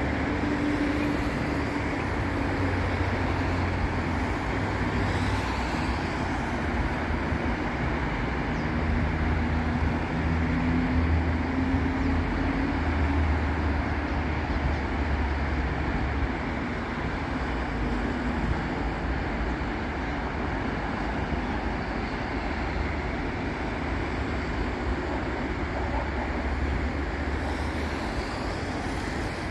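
Continuous road traffic on a busy city avenue: steady tyre and engine noise from passing cars and buses, with a low engine drone through the first half.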